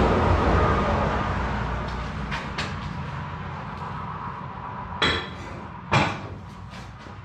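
A motor vehicle engine running, loudest at first and fading away, with two sharp metallic clanks about a second apart near the end.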